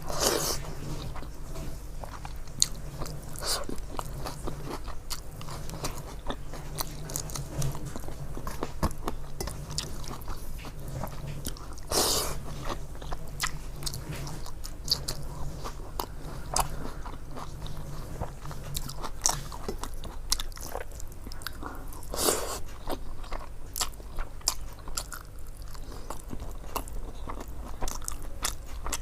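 A person chewing and biting food close to the microphone: wet chewing with many small clicks and a few louder crunches, over a steady low hum.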